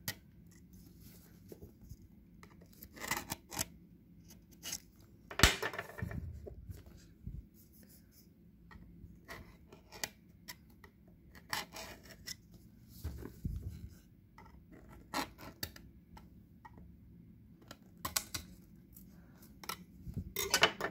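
Clear plastic cover and cardboard box of an action-camera package being handled and pried at: scattered clicks, scrapes and rustles, with a sharp knock about five seconds in.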